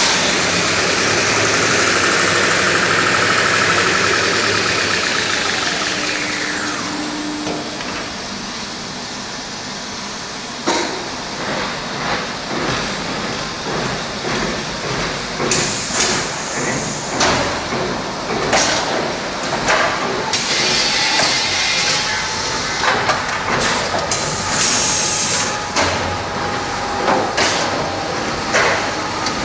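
Fabio Perini toilet-roll converting line running with a loud mechanical whir and hiss. A high whine glides down and fades after about six seconds, and from about ten seconds in there are irregular clanks and knocks.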